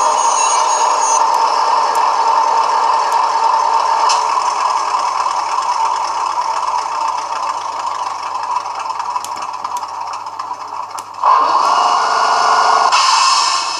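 A MaK DE1024 diesel locomotive engine sound played by an ESU LokSound V4.0 decoder through small piezo speakers on a model locomotive. The engine runs steadily, and about eleven seconds in a louder steady-toned sound starts suddenly for about a second and a half, followed by a hiss.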